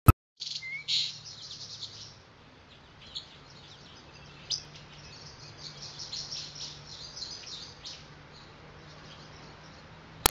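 Small birds chirping and twittering in a dense run of short high chirps, busiest in the first couple of seconds, over a faint steady low hum. A sharp click at the very start.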